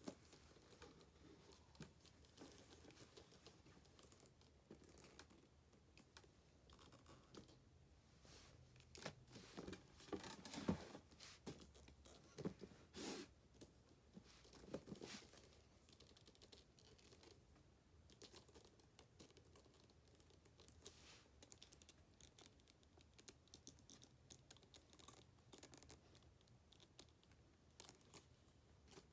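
Faint rustling and crinkling of packaging being handled, with scattered light taps and clicks, busiest around the middle.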